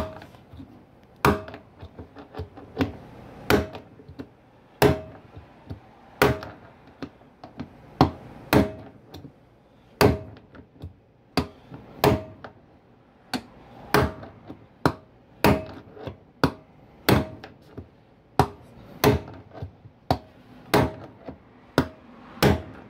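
Hammer blows on a steel punch, driving the old worn bearing out of a washing machine tub's hub: sharp metallic knocks with a short ring, roughly one a second, about twenty in all.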